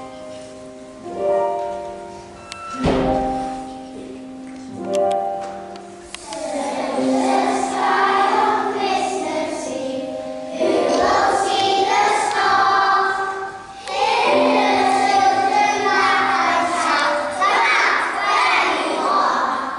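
Young children singing together as a group with instrumental accompaniment. The first few seconds are instrumental phrases of held notes alone, and the children's voices come in about six seconds in.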